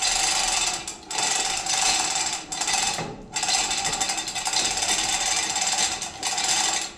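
Manual chain hoist lifting an ATV: the hand chain rattles through the hoist and the mechanism clatters in long pulls, with short breaks between pulls.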